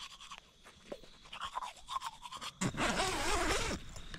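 Scratchy rustle of swag canvas and bedding being handled, about a second long, starting a little past halfway, after a few faint ticks.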